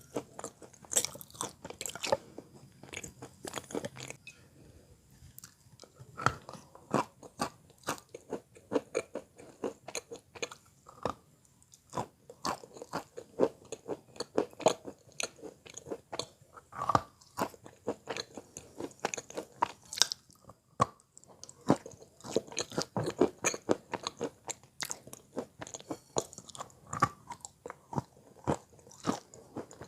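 Close-miked biting and chewing of wet Belgorod chalk: many dull crunches in an irregular rhythm, some bites louder than others.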